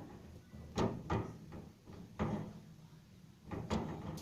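About five short knocks and clunks, two of them close together near the end, each with a short ring after it, over a low steady hum.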